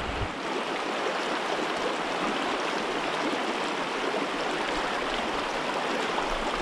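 Shallow mountain stream running over cobbles and boulders: a steady, even rush of moving water.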